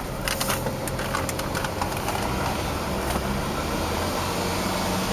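Steady low hum inside the cabin of a 2011 Hyundai Sonata Hybrid switched on and sitting in Park, with a few light clicks in the first two seconds.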